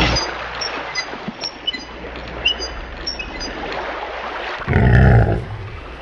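Added sound-effect track: a steady noisy background scattered with short high chirps, then a brief big-cat roar about five seconds in, the loudest sound here.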